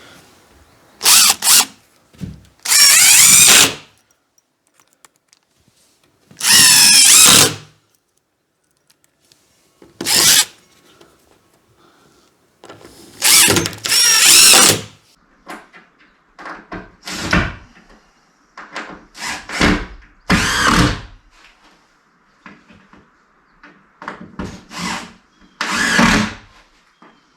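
Power drill driving screws through OSB panels into two-by corner blocks, in about nine separate runs, each under a second and a half long, with pauses between them; the motor's pitch glides as it works.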